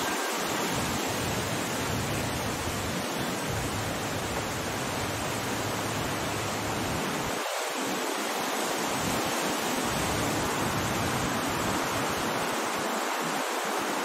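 A steady, even rushing noise that does not let up, spread evenly from low to high pitch with no voices standing out.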